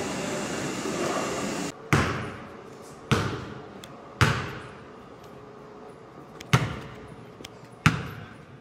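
Steady ventilation hum in a concrete corridor that cuts off suddenly just under two seconds in. Then a basketball bounces on the court five times, a second or two apart, each bounce echoing through the large arena.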